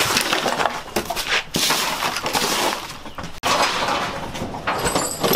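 Junk and debris clattering and crashing as trash is handled and dumped, in a run of noisy, crackling stretches with a sudden break about three and a half seconds in.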